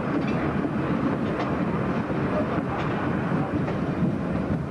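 A steam-hauled train of replica vintage carriages running along, heard from an open carriage on board: a steady rumble of wheels on the rails with a few faint, irregular clicks.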